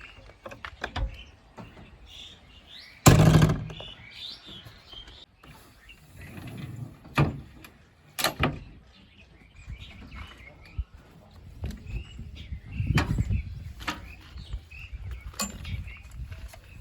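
Birds chirping, broken by several loud, irregular thumps and rustles, the loudest about three seconds in.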